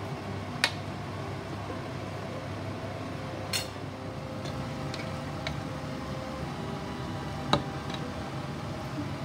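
A few sharp knocks and clinks of spoons against a cooking pot, over a steady low hum: three clear knocks, about a second in, midway, and near the end, with fainter ticks between.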